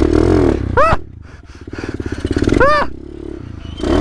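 Kawasaki KLX pit bike's single-cylinder four-stroke engine running and revving up as the bike pulls away; the rider says it is running poorly. Two short high yells come over it, about a second in and again past halfway.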